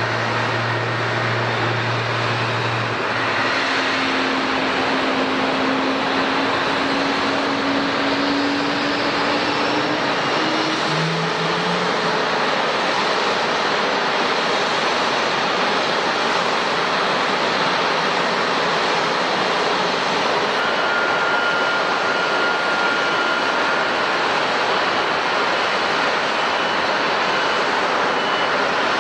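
Airbus A350's Rolls-Royce Trent XWB jet engines running, a steady loud roar. A low tone rises slowly through the first ten seconds or so.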